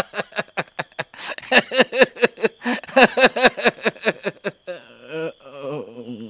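A man laughing in quick repeated bursts, easing off into softer chuckles about five seconds in, with crickets chirring faintly behind.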